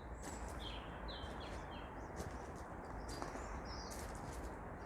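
Small birds chirping and singing in short notes over a steady low outdoor background hum, with a few faint clicks.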